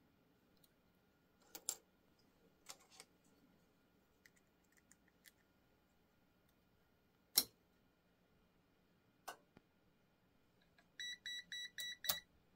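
Small clicks and taps of test leads and alligator clips being handled, with one sharper click a little past halfway. Near the end comes a quick run of about six short, high electronic beeps, about five a second, from the bench test gear.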